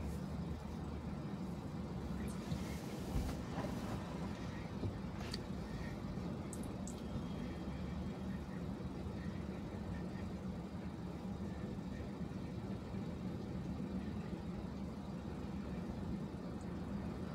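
Steady low rumble of road and traffic noise heard from inside a car's cabin as it drives through city streets, with a few faint sharp ticks in the first several seconds.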